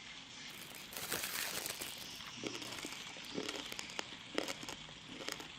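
Crispy skin of deep-fried pork hock crunching as it is bitten and chewed. There is a dense crackling crunch about a second in, then crunchy chews about once a second.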